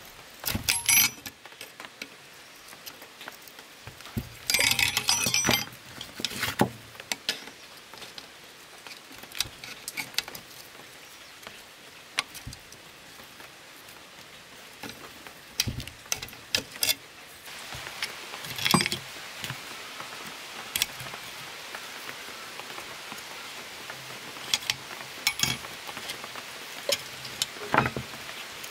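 Irregular metallic clinks and knocks from hand-tool work, with a longer scraping burst about five seconds in. A steady hiss of rain sets in a little past the middle.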